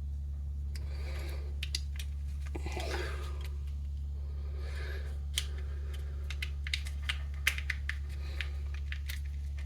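Small plastic clicks and rustling as the parts of a car key fob are handled and pressed together, a few sharp clicks coming in quick bunches in the second half, over a steady low hum.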